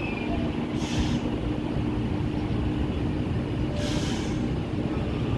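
Taiwan Railway EMU900-series electric multiple unit moving slowly along the station platform: a steady rumble with a low electric hum, and two brief hisses, about a second in and again about four seconds in.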